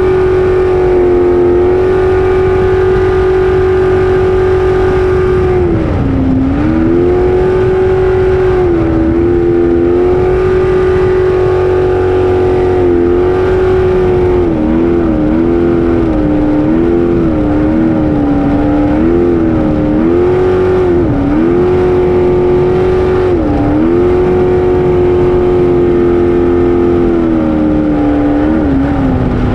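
Racing jet boat's engine running hard at high revs, heard from the cockpit. The revs hold steady, then dip briefly many times, with a run of quick dips in the middle and a longer drop near the end.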